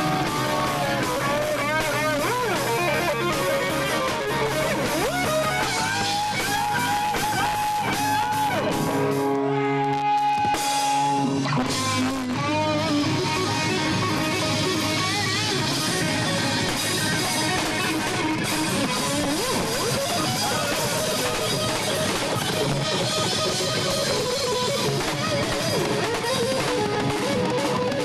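Live rock band playing, with guitar and drum kit. About ten seconds in, the drums drop out for a couple of seconds under a held chord, then the full band comes back.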